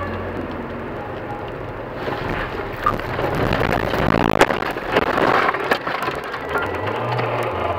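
A car's steady cabin hum, then a rising rush of snow and scraping as the car leaves the road and ploughs through a snowbank and bushes. Many sharp cracks of branches hit the car, loudest about four to five seconds in, then the noise eases.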